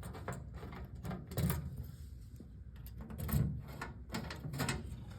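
Handling noise: three short muffled knocks and rustles, the loudest about three and a half seconds in, with a few lighter clicks between them.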